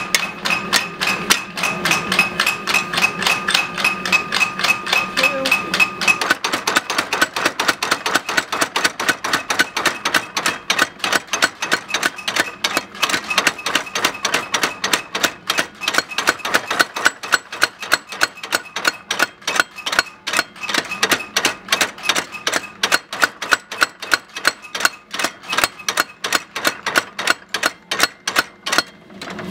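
Power hammer striking a red-hot steel knife blank in rapid, even blows, drawing out the blade. A ringing tone sounds under the blows for the first six seconds or so.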